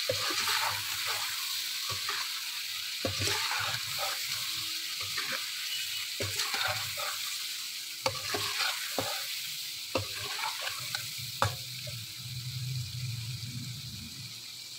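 Chicken pieces with spices frying in ghee in a karahi, sizzling steadily, while a metal slotted spoon stirs them and scrapes and knocks against the pan in irregular clinks.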